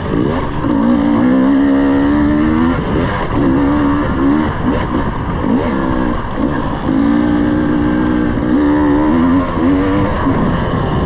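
300cc two-stroke dirt bike engine under way on a trail, its pitch rising and falling with the throttle. It holds a steady pitch for a couple of seconds about a second in, and again from about seven seconds, over a steady rushing noise.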